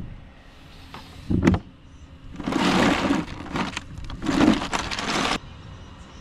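Ice cubes rattling and crunching in a plastic cooler as a salmon is moved in it, in two clattering spells that stop abruptly, after a single sharp knock about a second and a half in.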